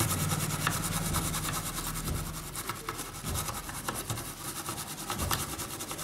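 Bristle brush scrubbing a motherboard's audio IC with thinner: a rapid, scratchy rubbing. A low steady hum runs beneath it and fades out about two and a half seconds in.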